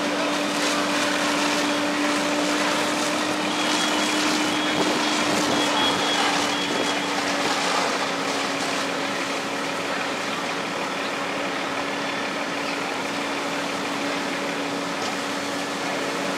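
Fire engine running steadily while pumping water to charged hoses: one unbroken engine drone under a broad rushing noise.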